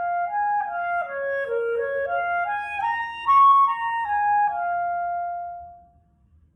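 Solo clarinet playing a blues melody: a line of short notes stepping down and back up, ending on a long held note that fades out near the end.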